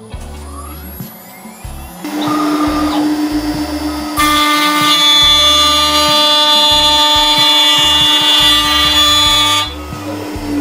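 Sienci AltMill CNC router's spindle running a finishing end mill along a walnut edge. A steady whine gets louder about two seconds in, then a loud, shrill cutting tone starts about four seconds in and drops away near the end.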